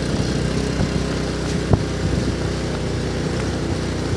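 Motorbike engine running steadily at low speed, with one sharp click nearly two seconds in.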